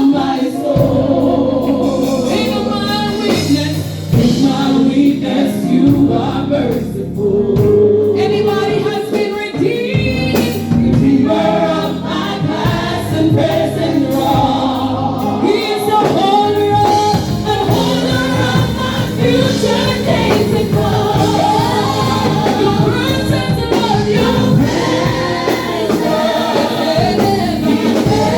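Church praise team singing a gospel worship song in chorus, with steady instrumental accompaniment underneath.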